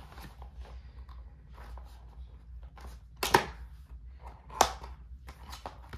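Clear PVC plastic bag around a CD album crinkling and rustling as it is handled and opened, with a run of small crackles and two sharp, louder crackles about three and four and a half seconds in.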